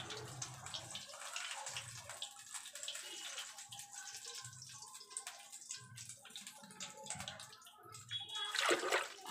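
Thick gram-flour batter being mixed by hand in a pot: soft, wet squelching and slapping that repeats roughly every half second to a second, with a louder swish near the end.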